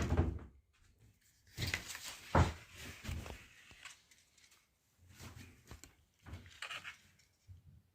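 A few light knocks and rustles in a small room, with a sharper knock about two and a half seconds in.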